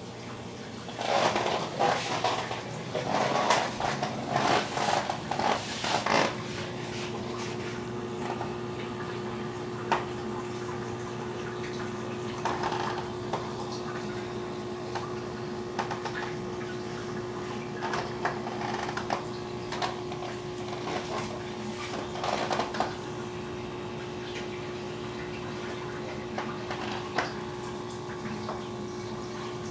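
Aquarium water circulating: trickling and splashing from the tank plumbing, louder and more broken for the first six seconds, with a steady hum setting in about six seconds in.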